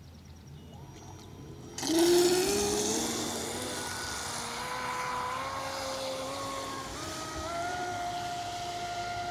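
RC speed boat's electric motor whining as it throttles up and speeds away, starting suddenly about two seconds in with a hiss of water spray; the whine climbs in pitch in steps.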